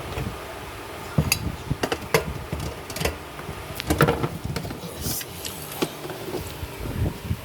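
Irregular sharp metallic clicks and knocks from hand tools working on a car body's sheet metal, about nine in all, the loudest a little over a second in and again around four seconds in.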